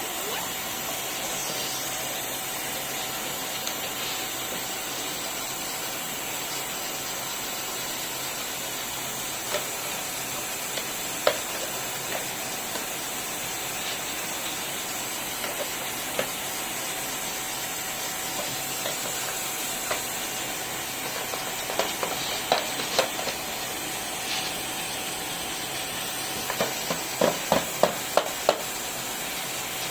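Vacuum cleaner running steadily, a constant rushing hiss with a steady whine in it, with scattered sharp clicks and a quick run of clicks near the end.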